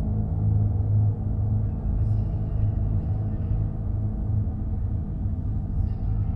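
Model Union Pacific gas-turbine locomotive running along the layout track: a steady low motor hum with wheel-on-rail rumble.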